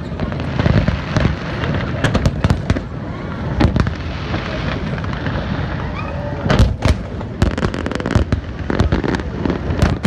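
Aerial fireworks finale: a rapid, overlapping barrage of shell bursts and crackle, with a cluster of the loudest bangs about two-thirds of the way through.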